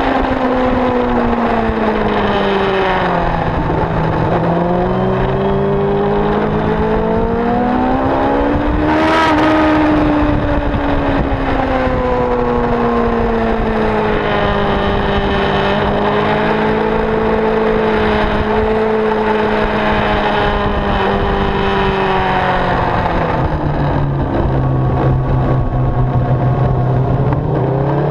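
Motorcycle engine heard from an onboard camera on track, its pitch dropping and climbing repeatedly as the bike slows for bends and accelerates out of them. There is a brief sharp click about nine seconds in, and a spell of low steady running near the end before the revs rise again.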